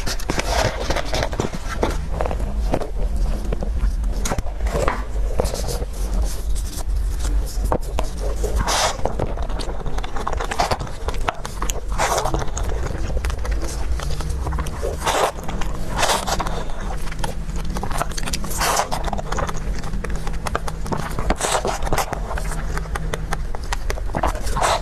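Close-miked eating sounds: chewing and biting into dessert, with a sharper bite or smack every one to three seconds over a steady low hum.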